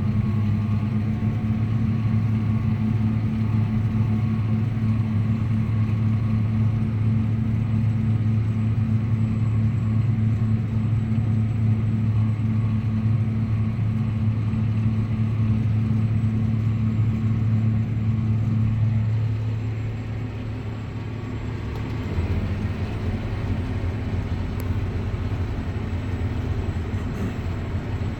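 Farm tractor engine running steadily under load while pulling a tillage implement. About two-thirds of the way through, its note drops and quietens, then settles back to a different steady pitch.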